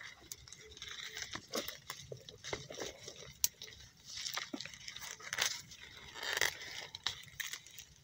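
Dry leaves and twigs crunching, rustling and snapping as someone pushes through dense undergrowth, with irregular sharp cracks; the loudest is a single snap about three and a half seconds in.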